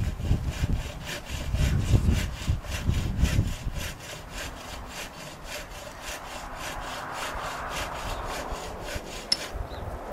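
Handsaw cutting through a wooden log in quick, even strokes, about four a second, stopping shortly before the end. Heavy low thumps and rumble sound underneath during the first few seconds.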